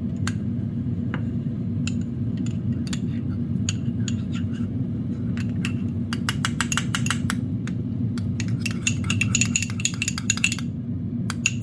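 A metal teaspoon clinking against a bowl as a mayonnaise-and-ketchup dipping sauce is stirred. Scattered taps at first, then rapid, continuous clinking from about six seconds in, with a short break near the end. A steady low hum runs underneath.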